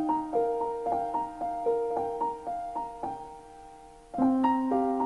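Piano music: a slow intro of broken chords, notes struck one after another and left to ring, with a new chord struck about four seconds in.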